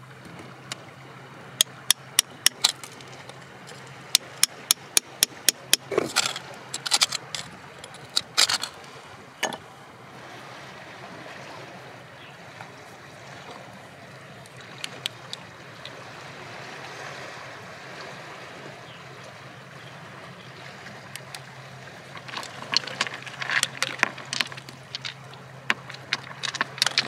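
Sharp taps and clinks of a small hand tool and stones against hard rock while digging a stone out of gritty soil. A run of taps a few per second through the first ten seconds, a quieter stretch, then a denser cluster of clinks near the end, over a steady low hum.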